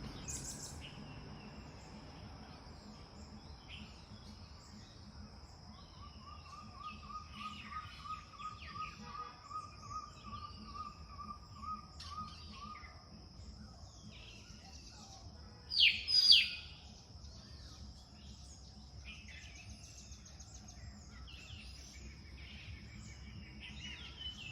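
Birds calling over a steady high-pitched insect drone, with a rapid low trill for several seconds in the first half. Two loud, sharp bird calls come about two-thirds of the way through.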